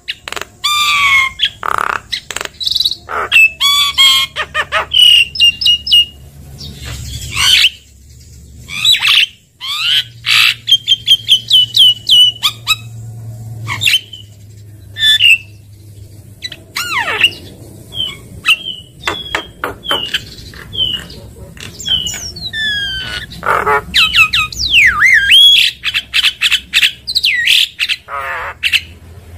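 Javan myna singing a loud, varied run of whistles, sharp chirps, rising and falling slides and harsh squawks, broken by short pauses.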